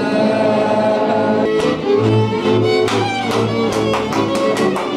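Hungarian folk band playing: sustained sung and bowed notes, then from about a second and a half in fiddle and string bass with a steady beat of sharp percussive strikes.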